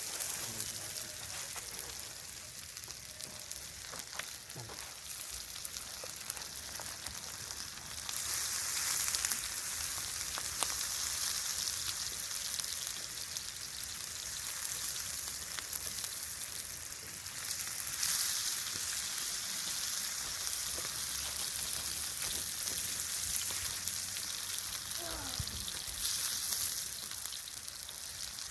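Onion frying in hot oil on a griddle plate: a steady sizzle that swells louder at a few moments.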